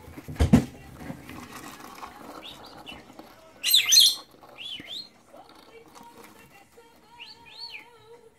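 A loud thump about half a second in, then lovebirds chirping in short, shrill calls. The loudest is a rapid cluster about four seconds in, with another pair of chirps near the end.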